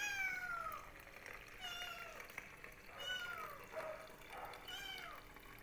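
A cat meowing over and over, a run of short calls that each fall in pitch, about one a second. Boiling water is being poured faintly underneath.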